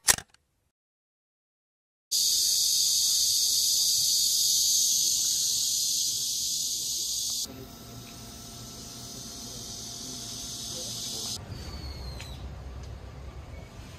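Steady, high-pitched summer insect chorus that cuts in after a click and about two seconds of silence, then drops away about halfway through, leaving quieter outdoor ambience with a low rumble and a short chirp near the end.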